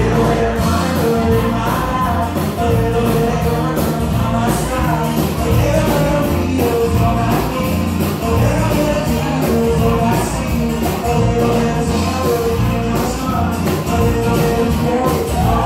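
Live band playing a dance tune, drums and keyboard over a steady beat with a repeated melodic riff.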